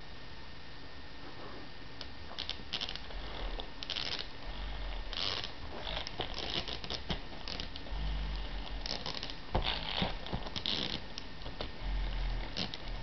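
Small dog chewing and gnawing on a plush toy frog: irregular scratchy, tearing sounds of teeth working the fabric, with a few dull low thumps. They start about two seconds in, after a faint steady hiss.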